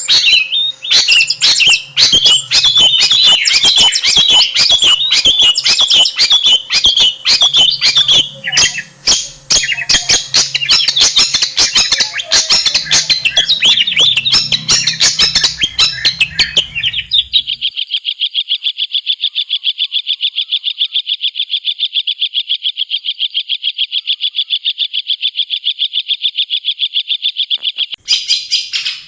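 Long-tailed shrike (cendet) singing: a fast, scratchy chattering song. About 17 seconds in it gives way to a long, even, rapid trill for about ten seconds, and the chatter comes back near the end.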